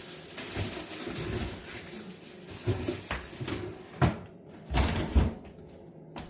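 Groceries being handled and put away in a refrigerator: rustling for the first few seconds, then several sharp knocks and thumps of items and doors.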